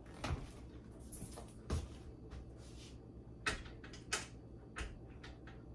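A door clicking and knocking a few times, five short sharp knocks spread out over a low steady hum.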